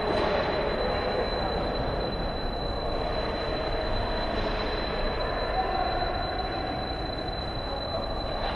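Steady rumbling rink noise of an ice hockey game: skates scraping and gliding on the ice under the hum of a large, echoing arena, with a thin steady high whine.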